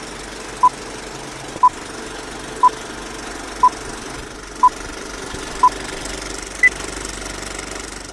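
Film projector running with a steady mechanical clatter, under a film-leader countdown beeping once a second: six short beeps at one pitch, then a seventh, higher beep.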